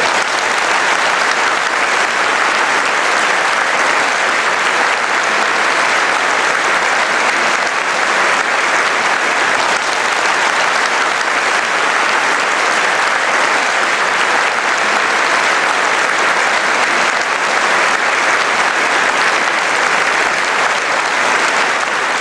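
A large audience applauding: dense, unbroken clapping that holds steady throughout.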